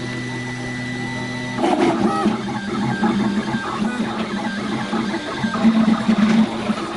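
Home-built 3D printer's stepper motors whining as the print head moves: a steady pitched hum, then about a second and a half in a busier run of short notes that change pitch with each move.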